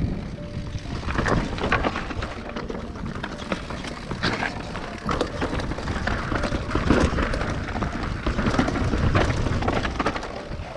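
Mountain bike descending a rocky singletrack: wind rumbling over the body-mounted microphone, with the tyres crunching over loose stones and the bike clattering at each knock.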